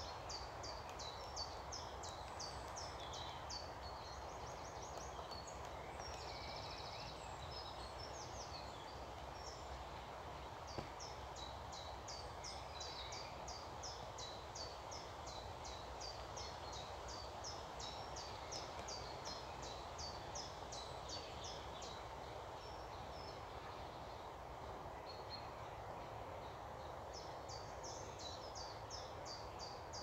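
Small songbirds singing: runs of high, thin notes repeated several times a second, over a steady background rush of outdoor noise. The song thins out for a few seconds after the middle and picks up again near the end.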